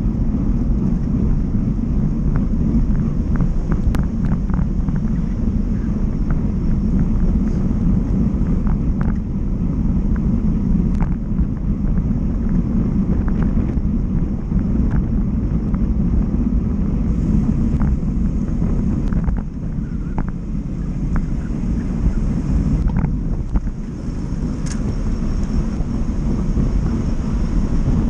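Wind rushing over the microphone of a camera mounted on a moving road bike's handlebars, a steady low rumble mixed with road and traffic noise, with scattered sharp clicks from the bike or road surface.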